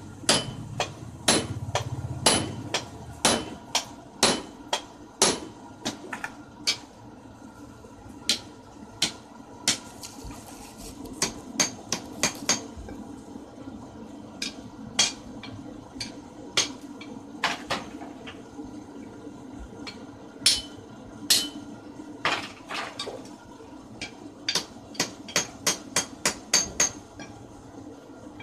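Hammer blows on red-hot 19 mm ribbed steel rebar lying on a steel anvil, forging the end of a crowbar. The strikes come mostly about once a second, with quicker runs of several blows in a row, two of them about halfway through and near the end.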